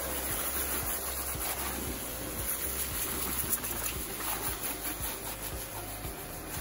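STARQ electric high-pressure washer running, its jet of water spraying in a steady hiss over the low hum of the pump motor.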